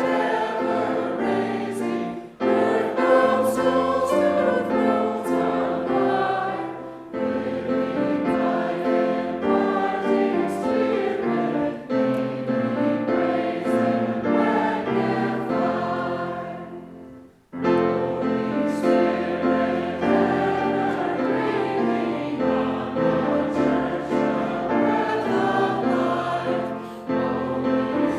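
Choir singing, held chords moving phrase by phrase, with a brief pause about 17 seconds in before the singing resumes.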